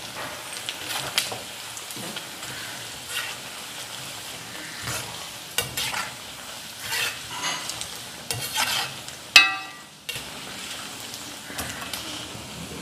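Beef and curry leaves deep-frying in hot oil in a metal kadai, sizzling steadily, while a perforated steel ladle stirs and scrapes against the pan. About nine seconds in comes one loud ringing metal clang.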